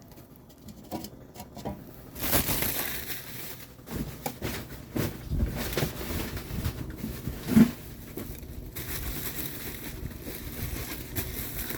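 Decorative fake rocks being handled and set onto a portable propane fire pit: irregular rustling and light knocks, with one sharper knock a little past halfway.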